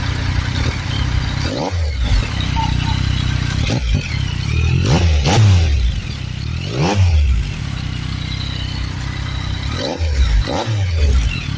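Yamaha MT-09 inline three-cylinder motorcycle engine idling and being blipped on the throttle about six or seven times. Each rev rises sharply and drops back to idle, with two quick pairs near the middle and near the end.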